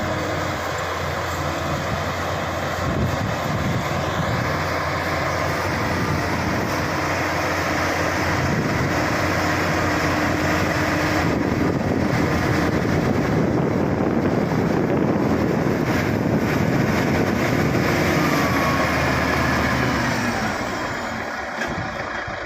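Shantui SD16 crawler bulldozer's diesel engine running with a steady drone, a harsher working noise building up through the middle and easing off near the end.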